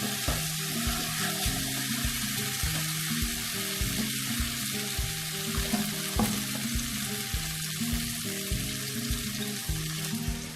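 Spice paste frying in mustard oil in a kadai: a steady sizzle, with background music with a steady beat underneath.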